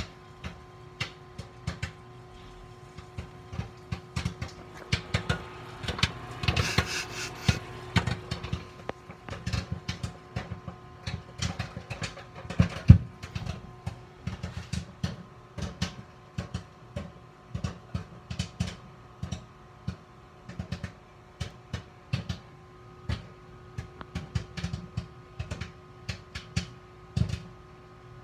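Microwave popcorn popping in its paper bag inside a running microwave oven: irregular sharp pops, several a second, over the oven's steady hum.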